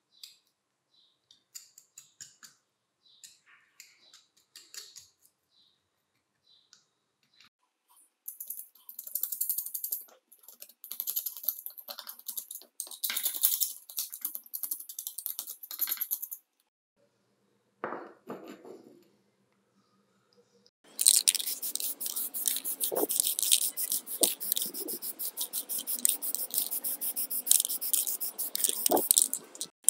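Metal scraper blade scraping softened, stripper-bubbled paint off an angle grinder's gear housing: light clicks and scrapes at first, then longer scraping strokes. In the last third a louder, denser rasping noise takes over.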